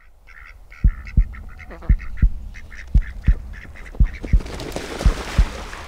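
Duck quacking in a quick series of calls over a steady low double thump that repeats about once a second, like a heartbeat. A hissing rush swells in the second half.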